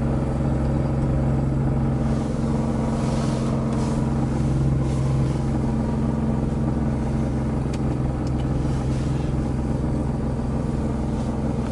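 Car engine idling steadily after a cold start, heard from inside the cabin.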